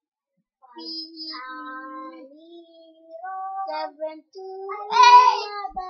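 A child singing a slow song in a high voice, drawn-out notes that step up and down in pitch, loudest and highest about five seconds in.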